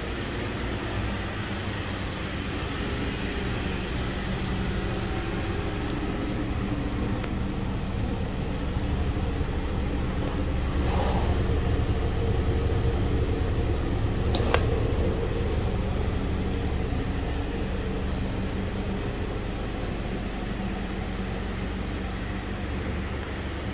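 2013 Dodge Dart's 2.0-litre four-cylinder engine idling steadily, louder for a few seconds around the middle as it is heard at the tailpipe. A single sharp click partway through.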